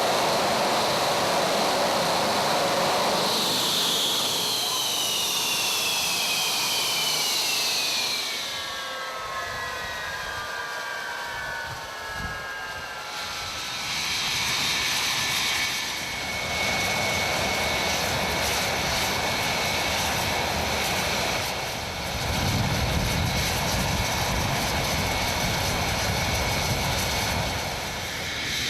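Twin Rolls-Royce Avon turbojets of an English Electric Lightning T5 running on the ground: a loud jet rush, then whines that fall steadily in pitch as the engines wind down. Partway through, the loud jet noise returns with a steady high whine, and a deep rumble joins it near the end.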